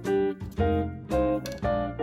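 Background music: keyboard and plucked-string notes over a bass line, a new note about every half second.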